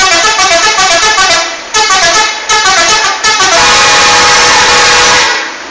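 Loud 'telolet' musical multi-tone horn on an Agam Tungga Jaya bus, playing three quick phrases of stepping notes, then holding one long chord for about two seconds before cutting off suddenly.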